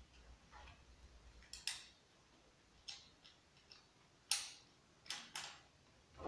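Light metallic clicks and clacks of a Husqvarna 390XP chainsaw's chain and guide bar being handled: about nine short, irregular clicks, the sharpest a little past four seconds in.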